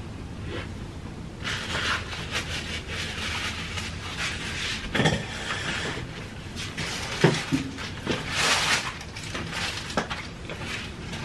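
Rustling and scattered light knocks of a person shifting and getting up from a table, with one sharper knock about seven seconds in.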